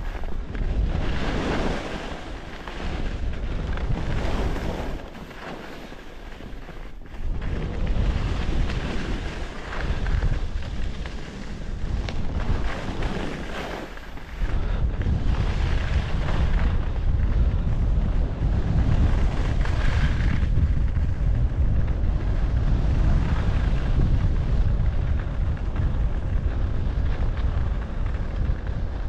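Carving skis hissing and scraping across the snow in a run of turns, a swish every couple of seconds, with wind rumbling on the microphone. About halfway the wind rumble gets suddenly louder and stays steady.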